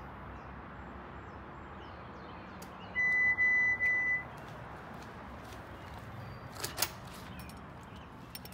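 An electronic beep from a door entry system, one steady high tone lasting about a second. A few seconds later come a couple of sharp clicks as the door is pushed open.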